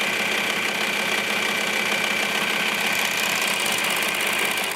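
Serger (overlock sewing machine) stitching steadily at high speed. It stops abruptly near the end.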